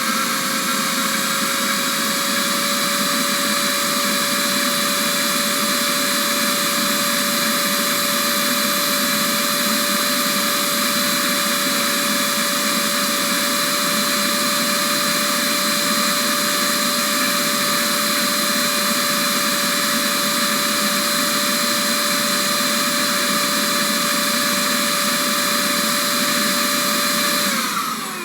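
Vacuum cleaner motor running steadily with a loud whir and a high whine, the whine rising slightly over the first couple of seconds as it reaches full speed. Near the end it is switched off, and the whine falls in pitch as the motor winds down.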